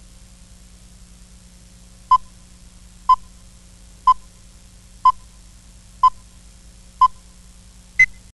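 Countdown-leader beeps from an Adobe universal counting leader: six short beeps of the same pitch, one a second, then a seventh, higher-pitched beep near the end, over a faint steady low hum. The sound cuts off just after the last beep.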